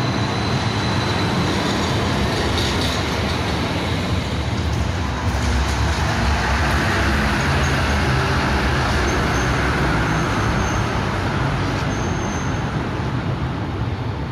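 Trams running through an underground tram stop: a steady rumble of traction motors and steel wheels on rail. It grows louder from about six seconds in as a tram passes close, with a few brief high squeals near the end.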